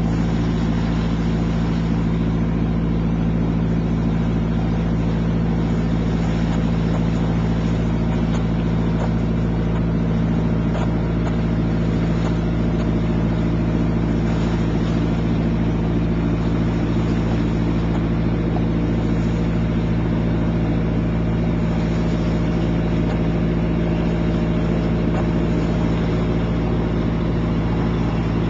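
A boat's engine running steadily, heard from on board while the boat is under way: an even low hum under a broad hiss, with no change in pace.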